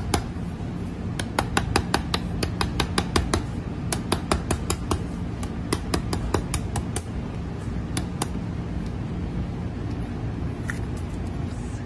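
Knife blade tapping on an ostrich eggshell to crack it open: a run of sharp hard taps, about three or four a second, that thins out after about five seconds and mostly stops after about eight.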